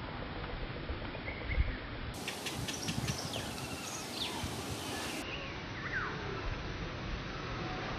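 Outdoor ambience: a steady hiss with short, high chirping calls scattered through the middle, and a few soft low thumps about one and a half seconds in.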